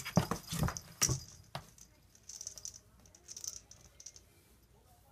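Kitten scrambling and tussling inside a cardboard box under a wire-grid lid: a quick run of knocks, thumps and rattles in the first second and a half, then a few softer scratching scuffs against the cardboard.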